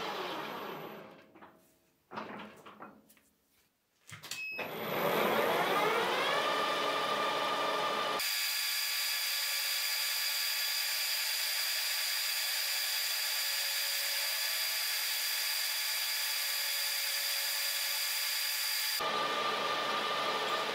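Metal lathe with a rotating-cutter attachment running down and stopping about two seconds in, a few light clicks, then starting up again with a rising whine about four seconds in and running steadily with a high whine as the two-tooth cutter machines the face of the metal blank.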